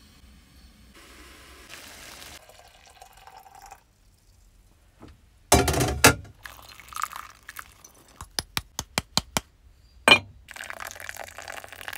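Kitchen handling sounds: a loud knock about halfway through, a quick run of light ticks, and a second knock. Near the end comes a steady stream of hot water poured from a kettle onto ground coffee in a paper pour-over filter.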